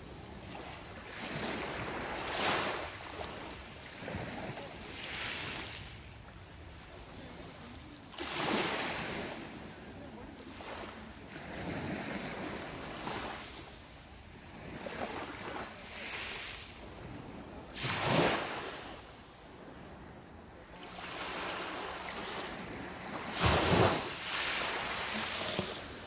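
Small sea waves breaking and washing over a pebble beach, the surf swelling and falling back every few seconds, with the loudest surges about 2, 8, 18 and 23 seconds in.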